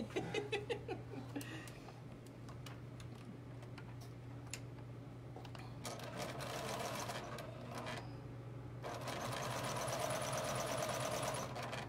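Sewing machine stitching a seam in two runs, the first starting about six seconds in and the second following a brief pause and running until just before the end, with a few light clicks in the first two seconds.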